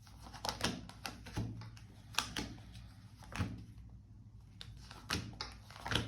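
Tarot cards being handled and laid down on a table: a series of irregular light taps and clicks.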